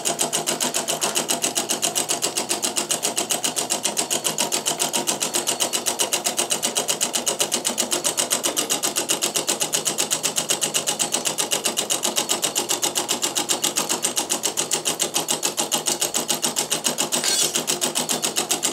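Homemade model electromagnet engine running fast: its two coils pull an iron plate each turn, with a cam-worked make-and-break switch and a flywheel. It makes a rapid, even clacking of several strokes a second that keeps a steady beat throughout.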